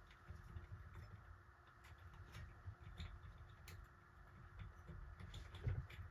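Faint, scattered small clicks and taps from hands handling the wires and small parts of a ceiling fan's pull chain switch housing, over a faint steady hum.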